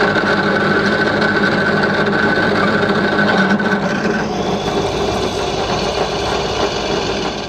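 Drill press running, its twist bit cutting a hole through a steel plate. A steady high-pitched tone rides over the motor and cutting noise for roughly the first half, then fades out.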